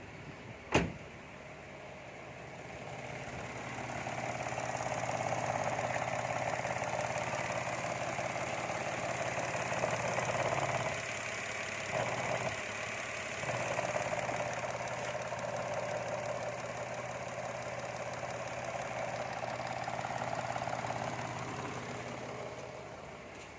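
Mitsubishi Mirage engine running steadily at idle, coming up a couple of seconds after a single sharp click and briefly dipping about halfway through before fading near the end.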